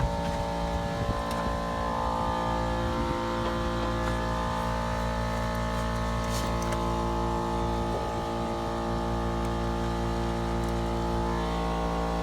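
A steady multi-tone mechanical hum runs unchanged throughout, with a few faint clicks from hand work under the hood.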